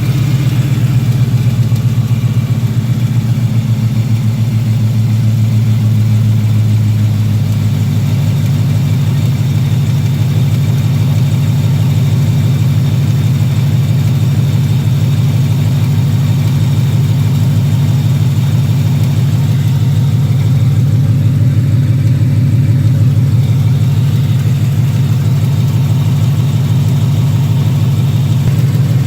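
A 2018 Ford Mustang GT's supercharged 5.0-litre Coyote V8 idling steadily, its note shifting slightly about seven seconds in. Under the idle is a ticking/clicking that the owner places at the bottom of the engine on the passenger side; he hopes it is only noisy injectors and not a failing bottom end.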